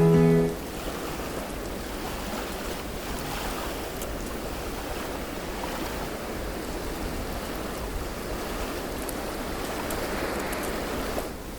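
Sea waves washing onto a shore, a steady rushing that swells and eases. Background music cuts off just at the start.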